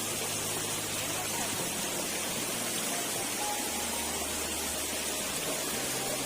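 Steady rushing of river water, with soft background music whose low notes change every second or two.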